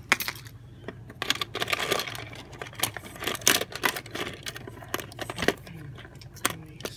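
Loose car keys and key fobs clinking and jangling as a hand rummages through a box full of them: a run of sharp metallic clicks, busiest about a second and a half in and again around three and a half seconds.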